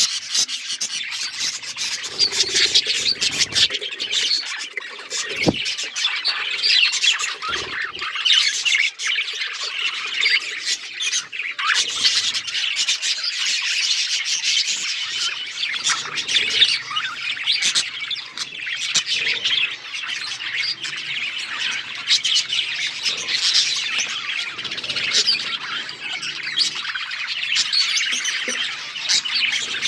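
A flock of budgerigars chirping and chattering continuously, many birds' calls overlapping.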